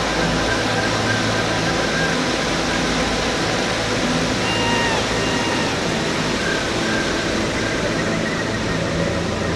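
River water rushing over rapids: a loud, steady wash of white-water noise. A few faint high whistles are heard above it about halfway through.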